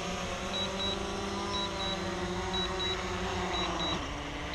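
Quadcopter drone's electric motors and propellers whirring at idle just after touchdown, their pitch dropping about four seconds in as the motors begin to spin down. Pairs of short high beeps repeat about once a second, a low-battery warning from the remote controller.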